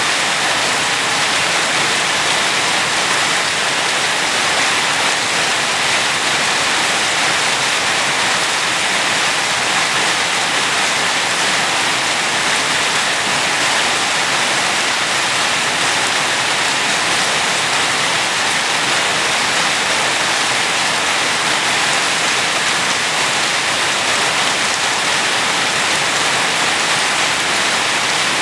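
Steady, heavy rain falling: an even hiss of drops, unchanging throughout.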